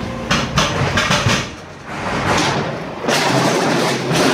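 A quick run of knocks and thuds, then steady rumbling noise, as a pallet jack is moved out of a trailer onto the loading dock.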